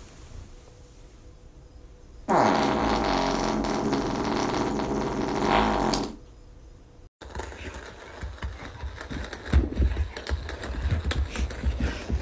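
A long fart from a bulldog-type dog lying on its side: one loud, pitched, continuous tone that starts about two seconds in, runs for almost four seconds and stops abruptly. After a brief gap, a string of light knocks and scuffles follows.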